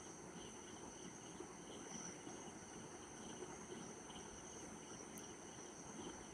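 Faint crickets chirping in a steady, regular pulse over a low background hiss.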